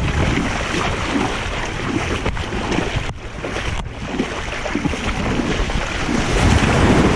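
Steady wind rushing over the microphone, with small waves washing in the shallows.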